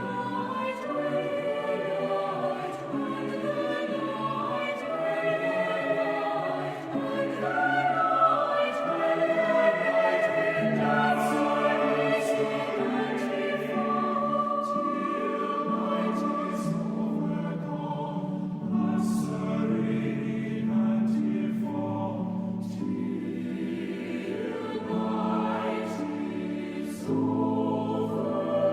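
Music: a song with several voices singing together in long, held notes.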